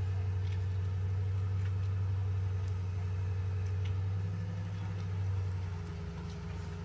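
Steady low mechanical hum of a running motor, with a faint higher tone above it; about five seconds in it turns rougher and a little quieter.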